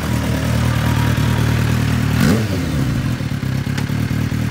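Kawasaki Ninja H2's supercharged inline-four idling steadily on its stock, non-full-system exhaust, not that loud. A little past halfway its pitch briefly rises and falls.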